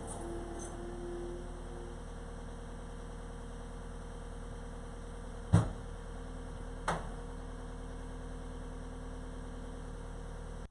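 A steady electrical hum with several held tones, broken by two sharp knocks about a second apart near the middle, the first the louder.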